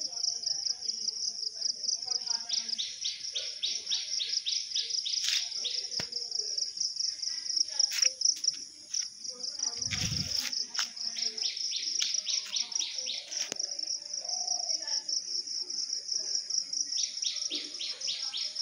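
Insects chirping in a fast, even pulse of about eight strokes a second over a steady high drone, swelling and fading in stretches. A brief low rumble about ten seconds in.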